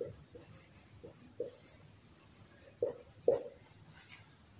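Marker pen writing on a whiteboard: a handful of short, faint strokes, the two loudest coming a little under three seconds in.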